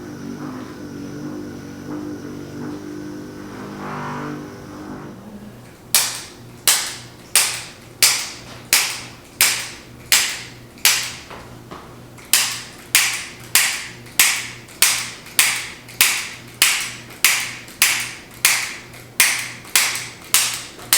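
A steady hum for the first few seconds, then a long run of sharp, evenly spaced clicks, a little under two a second, starting about six seconds in, with a short pause near the middle.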